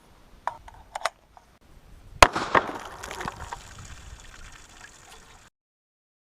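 A single sharp shot about two seconds in, followed by a few seconds of water splashing and spilling from the struck water-filled gallon jug target. A couple of light clicks come before the shot.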